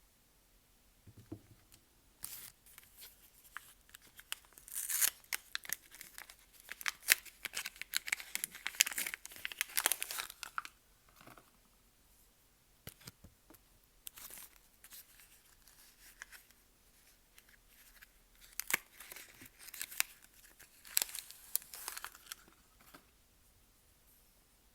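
Soap wrappers being torn open and crumpled by hand, crackling in two bouts: a longer one through the first half and a shorter one near the end.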